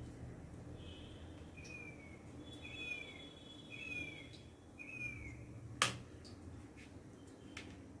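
A bird calling faintly: four short downward chirps about a second apart, over a low hum. About six seconds in there is a single sharp click, the loudest sound, which fits a knife blade striking a ceramic plate while soft cakes are cut.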